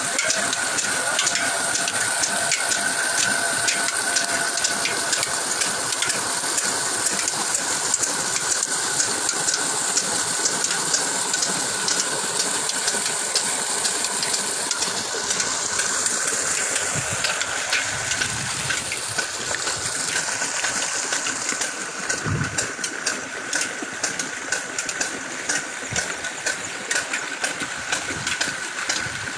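Water gushing steadily from the outlet pipe of an engine-driven well pump into a masonry tank, with the old diesel engine that drives the pump running behind it. The gush is a little fainter over the last few seconds.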